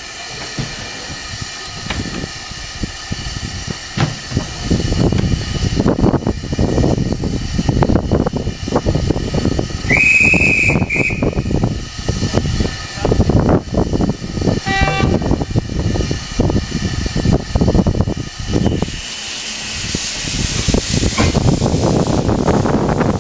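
Steam locomotive working, with its exhaust beating over a continuous hiss. A single whistle blast of about a second comes about ten seconds in.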